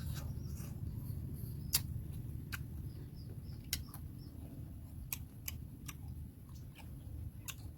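People eating roast chicken: scattered small clicks and crunches over a low steady rumble.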